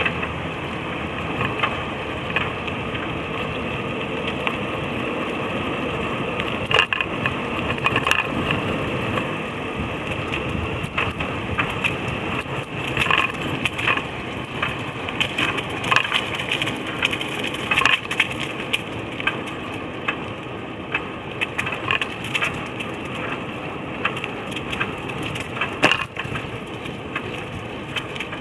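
Cruiser bicycle tyres rolling along a trail, smoother at first, then crunching and crackling over gravel, dirt and dry leaves with frequent small clicks and rattles from a few seconds in.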